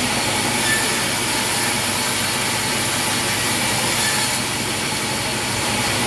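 Large band sawmill running: a steady, loud mechanical noise of the saw and its drive, with no break in it.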